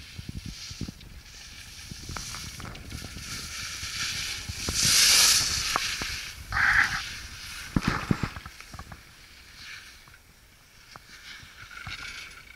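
Skis carving on a groomed piste: the edges hiss and scrape across packed snow, with a long loud swish about five seconds in and a shorter scrape a couple of seconds later. Wind buffets the microphone throughout.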